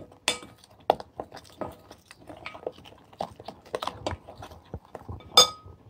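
Metal spoon stirring a wet spice paste in a glass bowl: repeated scraping and small clinks against the glass, with one loud ringing clink of spoon on glass near the end.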